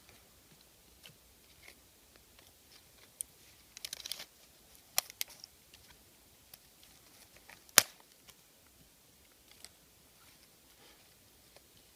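Dry sticks and twigs being handled and broken, giving scattered light clicks, a brief crackling rustle, and a few sharp snaps, the loudest about eight seconds in.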